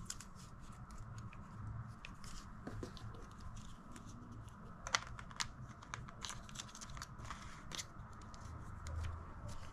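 Packaging being handled during an unboxing: plastic and paper rustling, crinkling and tearing, with scattered small clicks and taps and one sharper click about five seconds in.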